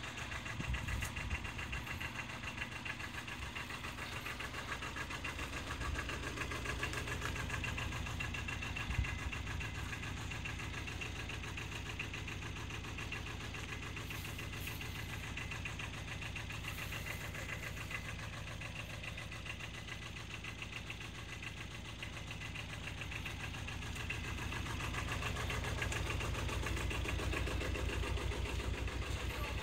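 Aixam Mega D-Truck microcar's small two-cylinder diesel engine idling steadily with a fast diesel clatter, a little louder near the end.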